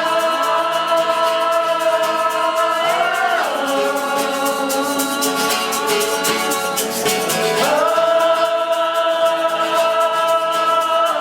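Live singing of long held "ooh" notes, each lasting a few seconds, sliding in pitch between them, over a shaker rattling in a steady rhythm.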